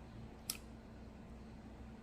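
Quiet eating sounds: a single sharp mouth click or smack about half a second in, over a low steady hum.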